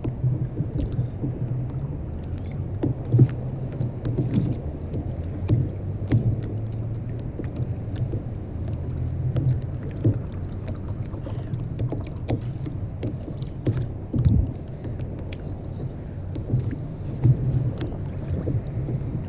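Water washing against a kayak's hull at sea, a steady low rumble, with scattered small clicks from handling the fishing rod and tackle.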